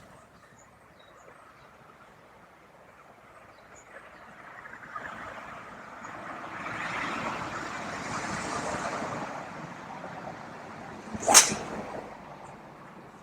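Wind rushing over the microphone, swelling and easing over several seconds, then a single sharp crack about eleven seconds in: a golf club striking the ball.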